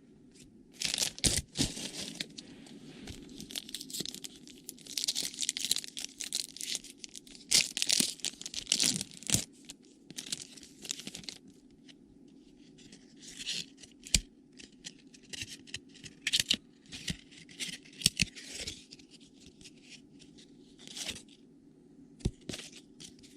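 A trading-card pack wrapper being torn open and crinkled, and the cards inside handled and flicked through: irregular papery rustles and sharp little snaps, over a faint steady hum.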